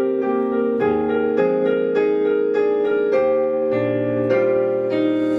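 Piano music: sustained chords and notes struck about twice a second, with no drums or voice.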